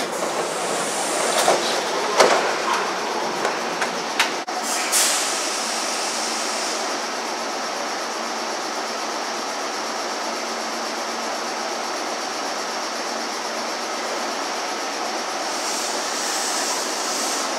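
Meitetsu 200 series electric train at an underground station. A few sharp knocks and clicks come in the first five seconds, then a steady hum from the standing train. Near the end a faint rising motor tone starts as it begins to pull away.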